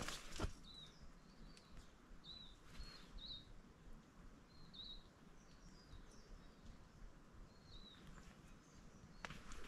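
Faint small-bird chirps: short, high calls every second or so, some rising then falling, over quiet bush. Footsteps stop just after the start and start again near the end.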